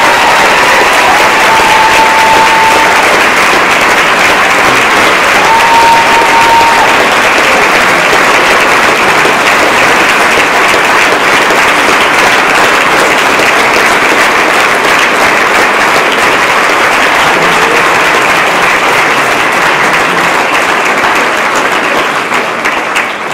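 Large audience applauding, a long, steady round of clapping.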